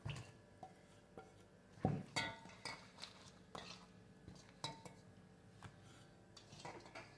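Clinks and knocks of a plate and a steel bowl being handled while eggplant slices are moved: about a dozen light strikes, some with a short metallic ring, the loudest about two seconds in.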